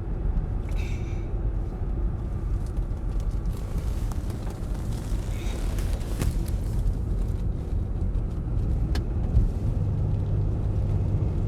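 Car driving up a mountain road, heard from inside the cabin: a steady low rumble of engine and tyres, with the engine hum getting louder about ten seconds in.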